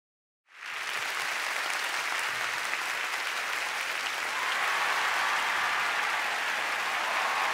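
A large crowd applauding. The clapping starts suddenly after half a second of dead silence, holds steady, and swells a little from about halfway through.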